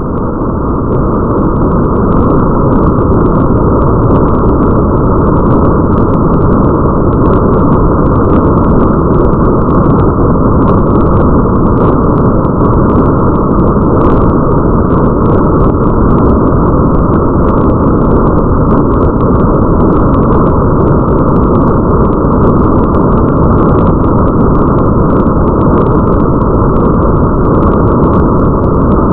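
Steady, muffled rain ambience, a dense deep hiss with faint scattered drop ticks above it, swelling up over the first couple of seconds.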